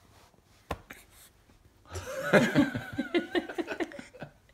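A person laughing, beginning about two seconds in: a quick run of short, breathy "ha" sounds that fall in pitch, after a couple of light taps.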